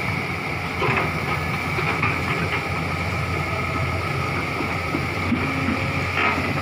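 Komatsu hydraulic excavator's diesel engine running steadily while the arm and bucket work through brush, with a brief louder clatter about a second in and again near the end.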